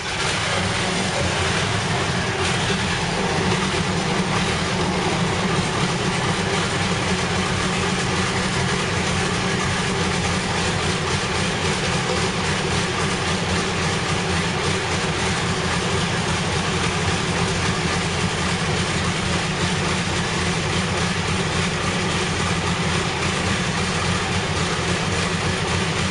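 Light tank's engine idling steadily, a continuous low mechanical running with no change in speed.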